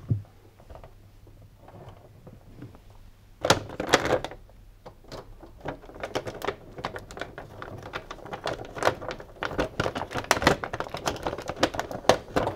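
Phillips screwdriver tightening the tensioning screw of a washing machine door seal's inner retaining band, the spring and band giving a run of quick clicks and knocks, with a louder cluster about three and a half seconds in.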